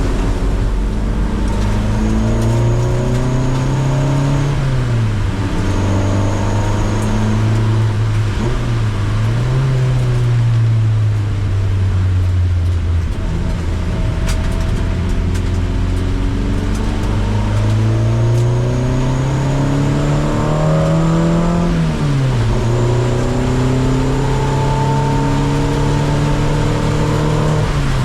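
A car's engine on a circuit lap. The revs climb and drop several times as it accelerates, shifts and slows, over a steady hiss, and a faint high whine comes and goes.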